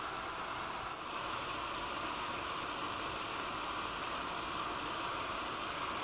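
Steady rush of shallow river water running over sandbars, an even hiss with no distinct events.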